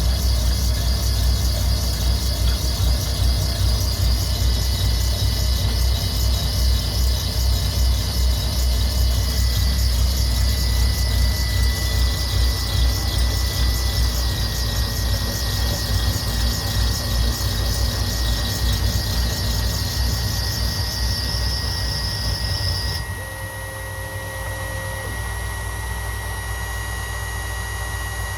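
A machine running steadily, with a low hum, a thin high whine and a hissy high-pitched noise. About 23 seconds in, the hiss cuts off suddenly and the sound gets a little quieter, while the whine and hum continue.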